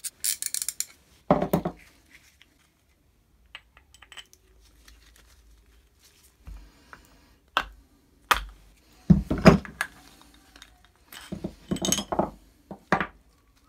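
Metal parts of a 1950s Wolf Cub electric drill's gear housing clinking and knocking as they are taken apart by hand: a quick run of small clicks at the start, then irregular knocks and clinks with quiet gaps, bunched together about nine and twelve seconds in.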